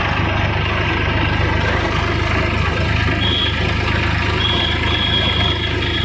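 Eicher 480 tractor's diesel engine running steadily under way, heard close to its exhaust stack. A few short high-pitched beeps sound over it from about three seconds in.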